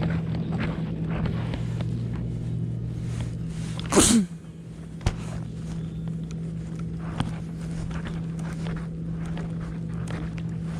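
Steady low hum of a boat motor running, with one sudden loud burst about four seconds in and a couple of faint clicks afterwards.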